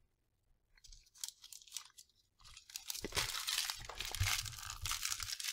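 Plastic snack wrapper crinkling as it is handled close to the microphone: a few light clicks, then a dense steady crackle from about halfway through.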